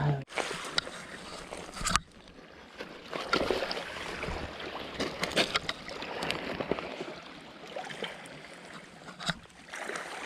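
Water splashing and sloshing with irregular crackles while a hooked black sea bream is brought in and landed.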